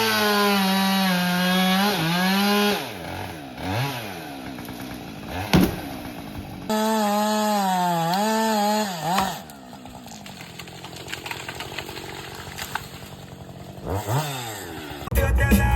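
Two-stroke chainsaw run at full throttle in two bursts of a few seconds each, its pitch wavering and sagging as if under load in the wood, and dropping back to a quieter low running between and after them, with a short rev near the end.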